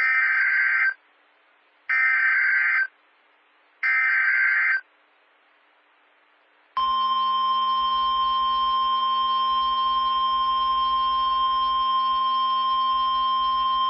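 Emergency Alert System broadcast: three roughly one-second bursts of screeching digital SAME header data, then, about seven seconds in, the long steady alert tone that opens a tornado warning.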